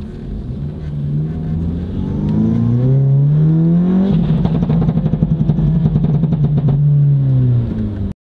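Seat Leon FR's turbocharged 1.8 TSI four-cylinder with a Milltek decat downpipe and non-resonated catback, heard from inside the cabin: the revs climb, then hold steady for a few seconds while the exhaust crackles and pops rapidly from its Stage 2 pops-and-bangs tune. The revs then drop and the sound cuts off suddenly.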